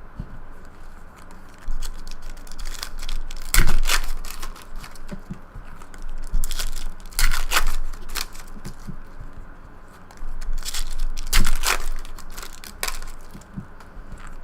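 Trading-card pack wrappers being torn open and crinkled, with cards shuffled in the hands: several sharp crinkling rips with quieter rustling between.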